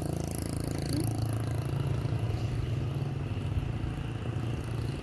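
Motorbike engines running steadily in the street, a low hum.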